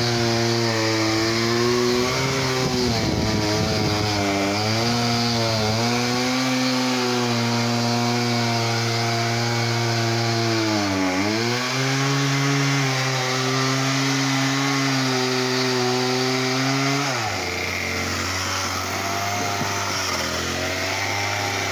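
Chainsaw running at high revs, bucking logs into firewood rounds. Its pitch dips several times as the chain bogs down in the cut, then falls to a lower note about four seconds before the end.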